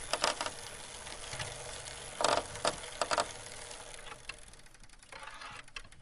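Recorded bicycle sound: mechanical ticking and rattling, with a few louder clatters about two to three seconds in, then rapid ticking that fades toward the end.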